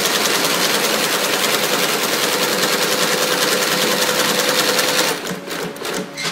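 XS0012 lockstitch sewing machine stitching a leather moccasin at speed, a rapid even clatter of needle strokes. About five seconds in it stops, then runs in a few short stop-start bursts.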